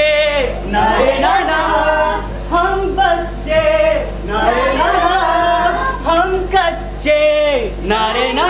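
A song with men's and women's voices singing over music, in phrases of about a second, with a steady low hum underneath.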